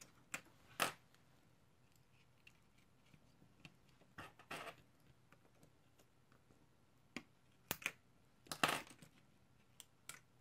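Scattered small clicks, taps and short scrapes of a metal spudger and small tablet parts being handled and set down on a wooden tabletop while a tablet's motherboard and speaker are worked free. A few slightly longer scrapes stand out, about a second in, midway and near the end.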